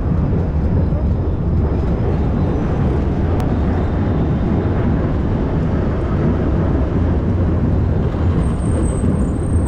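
Steady city traffic noise and wind rush on the microphone of a camera on a moving bicycle, heaviest in the low rumble. There is one sharp tick about three and a half seconds in.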